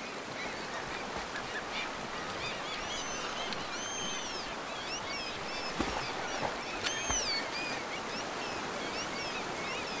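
Shallow river water running steadily, with birds calling over it again and again in short, high, arching calls; the loudest call comes about seven seconds in.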